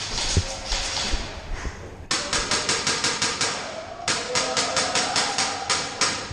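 Airsoft electric rifle firing a rapid string of single shots, about four to five sharp cracks a second, starting about two seconds in and stopping just before the end, after a stretch of noisy hiss.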